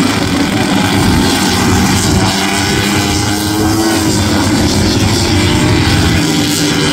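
Racing motorcycle engines running hard on the circuit, their pitch rising and falling as they pass, with a dip about four seconds in.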